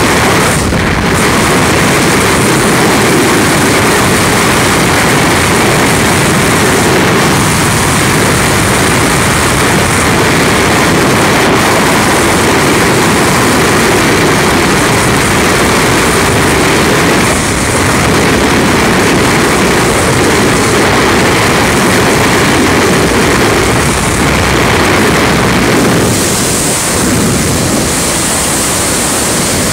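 Freefall wind rushing over a skydiver's camera microphone, a loud steady roar of air that turns hissier a few seconds before the end.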